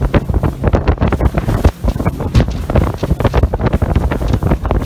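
Strong wind buffeting the microphone at the bow of a rigid inflatable boat under way across choppy water, in irregular loud gusts and thumps.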